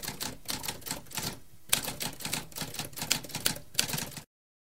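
Typewriter keys clacking in a quick, irregular run. There is a short pause about a second and a half in, then a harder strike, and the typing stops a little after four seconds in.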